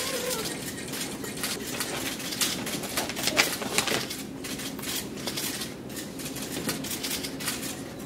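Many camera shutters clicking rapidly and irregularly, overlapping one another: a crowd of press photographers shooting posed photos.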